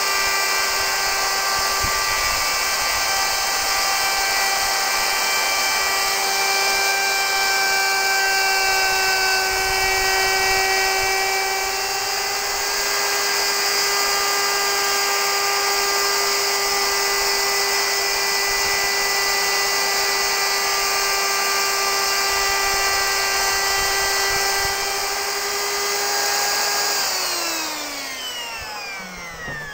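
Electric plunge router with a small bit running at a steady high whine while routing a shallow recess into oak. About 27 seconds in it is switched off and its pitch falls away as it spins down.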